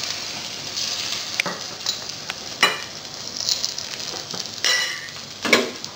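Beaten egg rolled around mozzarella frying in a little oil in a pan, with a steady sizzle. A spatula scrapes and clicks against the pan a few times.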